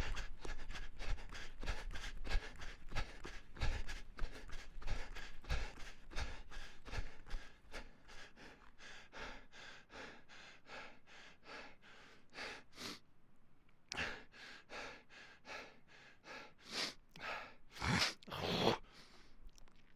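A person breathing hard and fast, panting in quick regular strokes. After about seven seconds it gets quieter and slows into spaced, deeper breaths, with a couple of long, heavy ones near the end.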